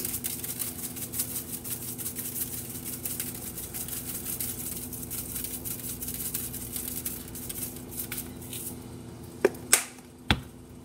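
Seasoning shaken from a spice shaker bottle over a sheet pan, a fast, dense patter of light ticks lasting about eight seconds over a steady low hum. Two sharp clicks follow near the end.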